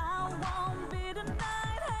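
Dance-pop song: a woman sings over a steady kick drum beating about twice a second.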